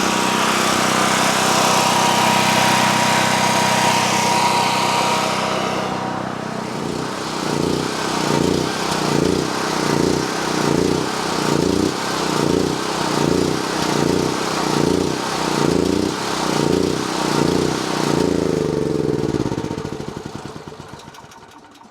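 Portable gasoline generator's pull-start engine running steadily at full speed. It then rises and falls about once a second as its fuel is shut off and the carburetor runs dry, and dies out near the end.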